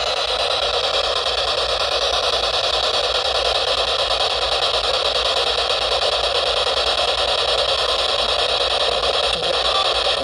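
SB-7 spirit box sweeping through radio frequencies, giving a steady hiss of radio static with no voice breaking through.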